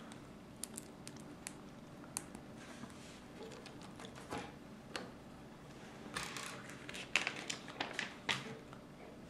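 Plastic Lego bricks clicking and tapping as pieces are handled and pressed onto a model car, with scattered single clicks and a quicker run of louder clicks near the end.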